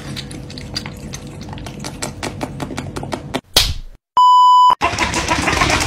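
A cat lapping water from a glass, a quick even run of soft clicks about six a second. It is followed by a short whoosh and a loud, steady test-pattern beep tone lasting about half a second.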